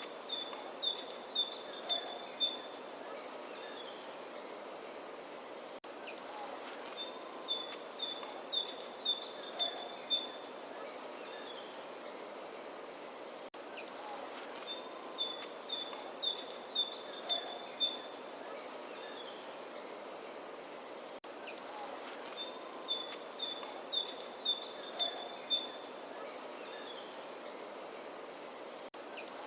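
Birdsong: the same phrase repeating about every seven and a half seconds, a quick falling run of high notes followed by a string of evenly spaced chirps on two alternating pitches, over a steady faint hiss.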